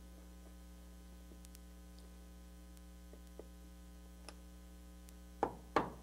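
Steady low electrical hum with a few faint clicks, then near the end two sharp taps of a hammer on a wood chisel. They start a quick run of taps as the bevel-down chisel scoops wood out of a door jamb to make a strike-plate mortise.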